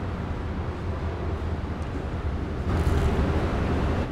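Steady low background hum and rumble, with a slightly louder stretch of hiss about three seconds in.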